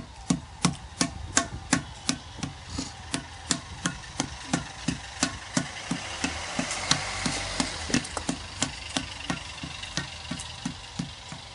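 Wooden paddle beating the wall of a large clay pot to shape it, in a steady run of dull knocks about three a second.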